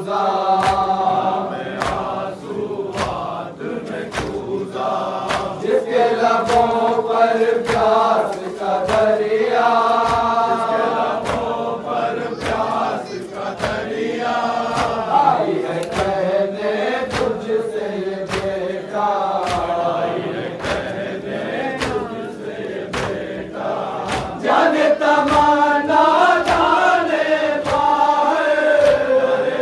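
A crowd of Shia men chanting a noha (Muharram lament) together, with rhythmic chest-beating (matam) slaps keeping a steady beat of about one and a half slaps a second. The chanting grows louder near the end.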